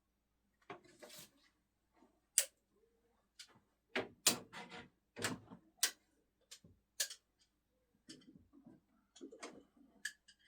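Thrown screwdrivers knocking into a target: a sharp hit about two seconds in, then a cluster of knocks and clatter around the middle, and a few lighter knocks near the end.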